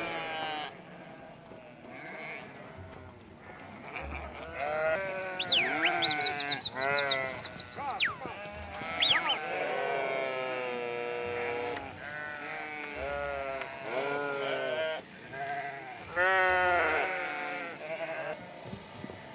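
A penned flock of sheep bleating: many wavering calls overlapping one another, starting about four seconds in, some high and thin, most lower.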